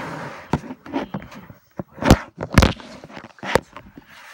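Handling noise: irregular sharp knocks and taps of hands against the phone that is recording, the loudest about two seconds in and two more soon after.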